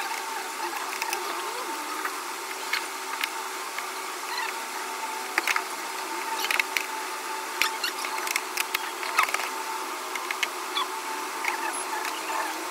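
Fast-forwarded handling sounds of a laptop being reassembled: many small scattered clicks, taps and scrapes of a screwdriver and plastic and metal parts over a steady hum.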